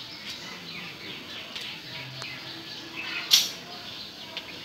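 Faint background bird chirps, many short calls, with one brief hiss about three seconds in.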